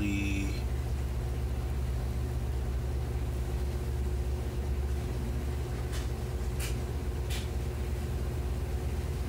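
Steady low mechanical hum and rumble, with a faint even tone over it. About two-thirds of the way through come three faint short rustles of the glossy instruction sheet being handled.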